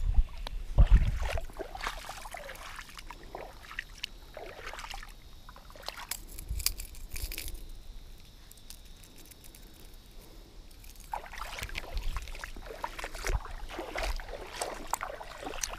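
Light water sloshing and wind on the microphone, with scattered small clicks and knocks from handling a spinning rod and reel. There are a few heavier bumps about a second in.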